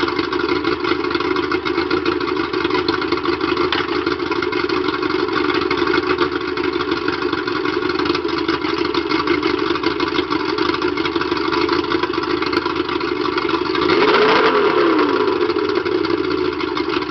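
1993 Suzuki 90 hp two-stroke outboard motor idling steadily. About fourteen seconds in, a quick blip of the throttle raises its pitch, which then falls back to idle over about a second.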